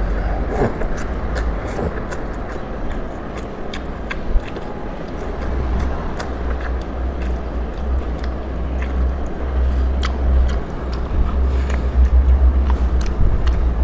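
Close-miked eating of beef noodles: slurping and chewing with many small wet clicks, over a steady low rumble.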